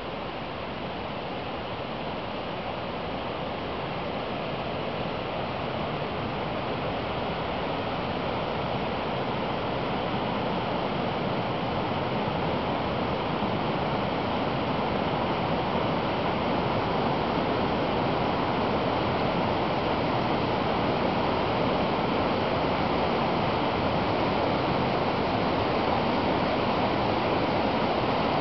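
Water rushing down a cascading brook swollen with spring floodwater, a steady sound that grows gradually louder.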